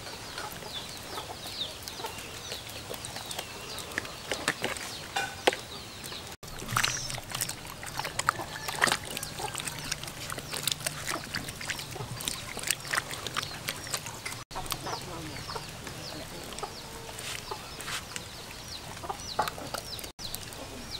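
Chickens clucking, with scattered short clicks and taps.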